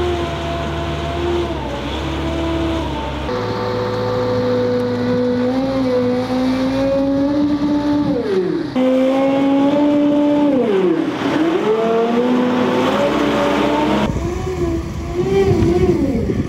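Fat Truck's small four-cylinder Caterpillar engine working hard under load, its pitch sagging and climbing back twice as it pulls on a tow strap to right an overturned Fat Truck.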